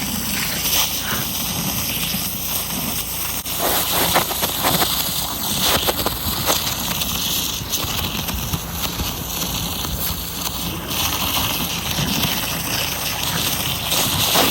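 Gas pressure washer running steadily, its engine under the hiss of a high-pressure (3100 PSI) water jet spraying into a pumpkin.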